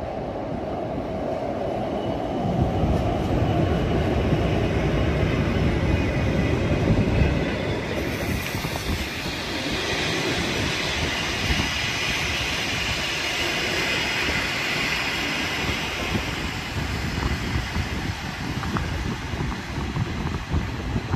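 SJ passenger train pulling into the station: a heavy rumble as the locomotive and coaches roll past, then a steady high squeal as it brakes, starting about eight seconds in and fading as the train slows.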